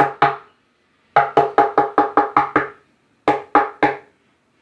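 Knuckles rapping on a wooden tabletop in quick groups: a knock or two at the start, a run of about seven at roughly five a second, then four more. Each knock has a short pitched ring from the wood.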